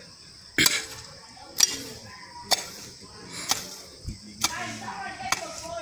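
Garden hoe striking into soil and weeds, about one stroke a second.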